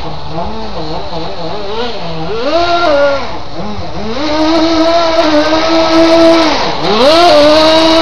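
Electric drive motor and gearbox of a radio-controlled Tamiya Blizzard tracked model whining, its pitch rising and falling several times with the throttle. The pitch holds steady for a couple of seconds in the middle, then dips and climbs again near the end.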